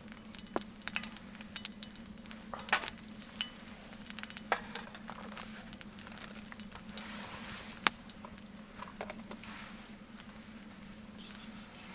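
Meat grilling over a campfire: faint sizzling with irregular sharp pops and crackles, and a steady low hum underneath.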